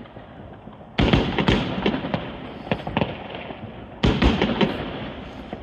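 Fireworks going off in two volleys about three seconds apart, each a sudden bang followed by a quick run of sharp cracks that fade away.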